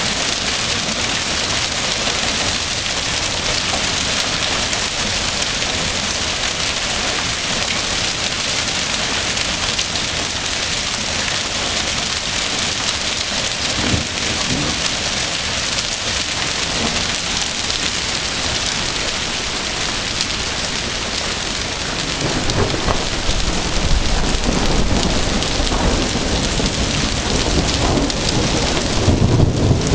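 Hailstorm: hail and heavy rain pounding down in a steady, dense hiss. Deep thunder rumbles in about two-thirds of the way through and swells again near the end.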